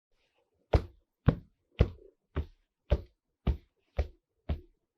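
A steady series of sharp thuds, eight in a row at about two a second, each with a short ringing tail, as in a foley recording.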